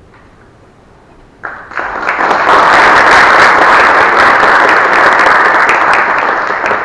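Large audience applauding. The clapping breaks out about a second and a half in, swells quickly, holds steady, then fades near the end.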